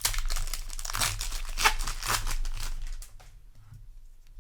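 Foil booster pack wrapper crinkling as it is handled and torn, for about three seconds, then quieter handling.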